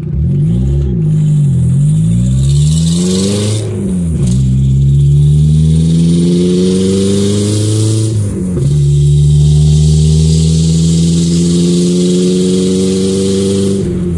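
1997 Audi A4's turbocharged 1.8-litre four-cylinder running way too loud through a short 2.5-inch dump pipe with no catalytic converter, heard from inside the cabin. It pulls away with the note climbing, drops in pitch at gear changes about four and about eight seconds in, then climbs slowly again.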